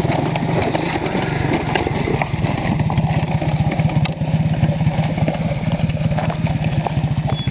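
ATV engines running at a low, steady throttle close by, with a fast, even pulse, and small clicks and crunches of loose rock under the tyres.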